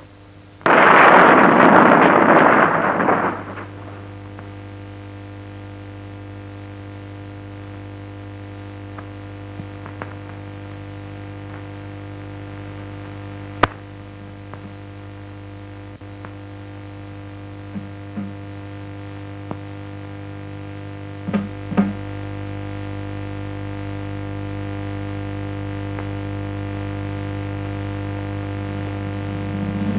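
A brief loud rushing noise, then a steady low droning hum that slowly grows louder, with a few faint clicks along the way.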